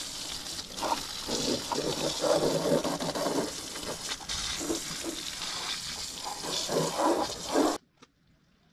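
Water sprayed onto a mud-caked electric motorcycle to soften the mud: a steady hissing spray with splashing that shifts as the jet moves over the bike. It stops abruptly near the end.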